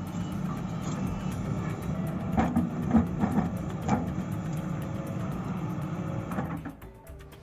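Small excavator's diesel engine running steadily, with a few sharp knocks and clanks from about two and a half to four seconds in. The sound drops away near the end.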